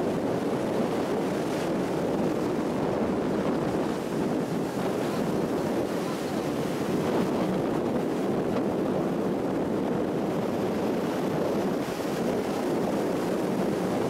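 Waves breaking and surf rushing over a rocky shore, with strong wind buffeting the microphone, heard as a steady, dense rush of noise.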